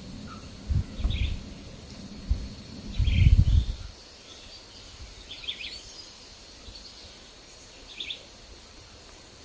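Wild birds giving short, scattered chirps, four brief calls spread over several seconds. Gusts of wind buffet the microphone in heavy low rumbles during the first four seconds, louder than the birds.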